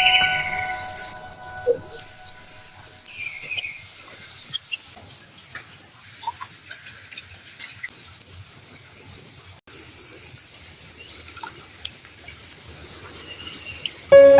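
Steady, high-pitched insect chorus of crickets or cicadas, with a few faint bird chirps; it drops out for an instant a little past the middle.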